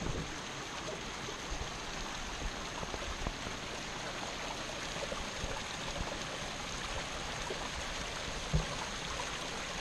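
River water running steadily, an even rushing sound.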